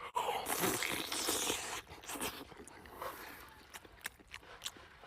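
Biting into and tearing at a cooked chicken drumstick, a scraping, tearing noise for the first couple of seconds, then quieter chewing with small clicks.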